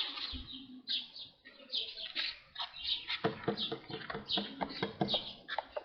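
Small birds chirping in a quick series of short, high calls, with a few sharp taps or knocks in the second half.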